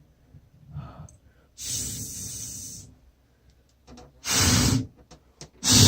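Breaths into a close microphone: a softer, drawn-out breath of about a second, then two short, louder puffs of breath near the end.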